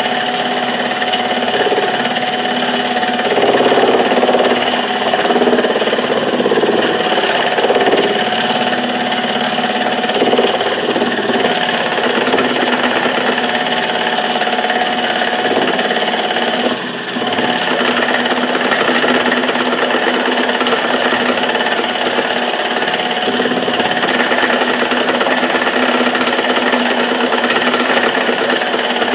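Small benchtop metal lathe running with a steady motor whine as a cutting tool turns down a bar of pure-grade titanium. Cutting noise comes and goes over the first ten seconds or so.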